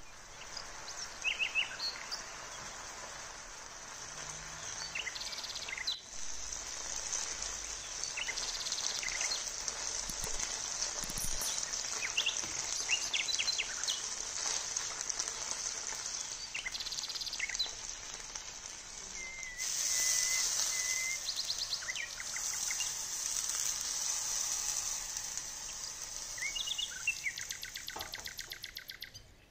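Marinated chicken pieces sizzling steadily in hot oil in a nonstick frying pan, with short high chirps sounding over the sizzle now and then.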